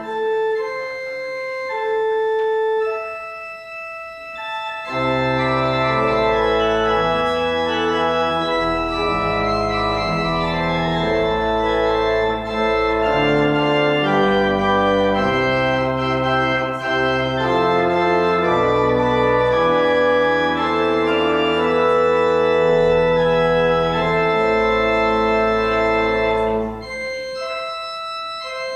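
Organ playing slow, sustained chords. A deep bass line comes in about five seconds in and drops out shortly before the end.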